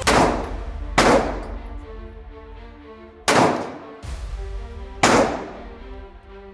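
Four handgun shots, the first two about a second apart and the next two about two seconds apart, each followed by a short ringing tail. Background music plays underneath.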